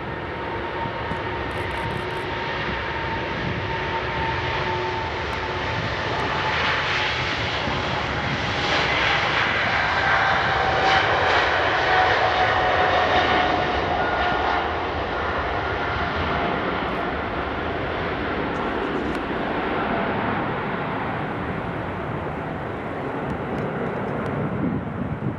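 Boeing 777 freighter's twin GE90 jet engines at takeoff power as it rolls down the runway, lifts off and climbs away: a steady roar with a whine that falls slowly in pitch as the plane goes by, loudest about halfway through.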